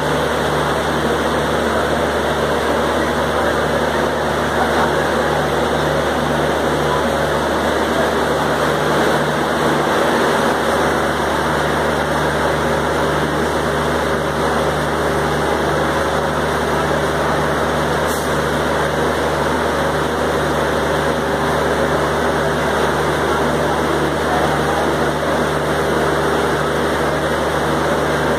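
Stationary Talgo passenger train's engine idling: a steady, unchanging low hum with an even rushing noise layered over it.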